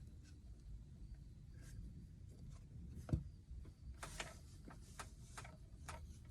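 Faint handling noises of small objects being picked up and set down: scattered light clicks and taps, with a soft knock about three seconds in and a few more clicks after it.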